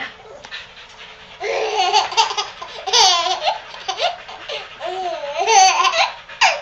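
Baby laughing in several bursts of high-pitched giggles whose pitch wavers up and down, starting about a second and a half in.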